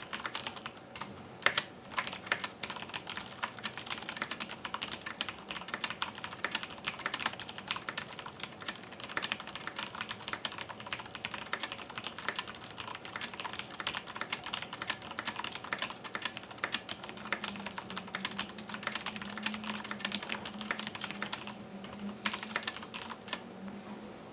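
Cherry G80-3800 mechanical keyboard with Cherry MX Clear switches (60 g springs) and double-shot ABS keycaps being typed on at around 70 words per minute: a fast, irregular stream of keystrokes, with a brief lull near the end.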